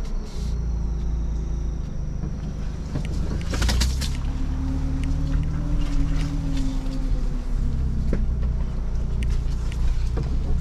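2021 Ford Bronco's engine running at low speed, its pitch rising and falling gently as it crawls over a rough dirt trail in four-low. Scattered knocks and rattles come from the vehicle, with a cluster of sharper ones about three and a half seconds in.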